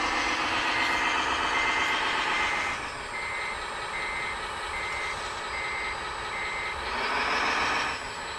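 Radio-controlled model truck reversing, its reverse-alarm sound module beeping at about two beeps a second, which stop about seven seconds in. Under the beeps the model's drive motor and gears whine, loudest in the first three seconds and again near the end.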